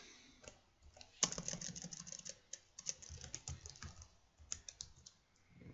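Typing on a computer keyboard: a quick run of keystrokes a little over a second in, then scattered single key presses.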